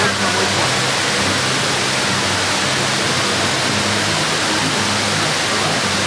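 Indoor waterfall: sheets of water cascading down a tall wall into the pool below, a steady, even rush of falling water.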